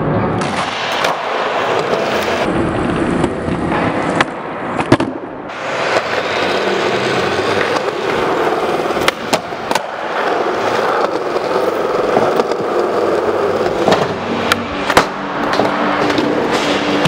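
Skateboard wheels rolling over a smooth concrete floor, broken by several sharp cracks of the board being popped and landed, in pairs around four to five seconds in, nine to ten seconds in and fifteen to sixteen seconds in.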